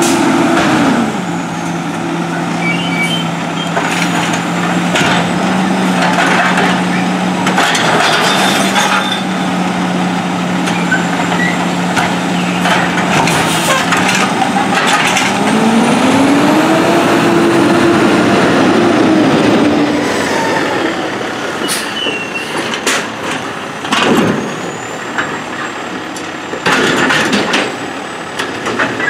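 Diesel engine of a Heil Durapack 7000 automated side-loading garbage truck idling, then revving up and settling back down about halfway through as the truck moves up to the cart. Several sharp air-brake hisses are heard.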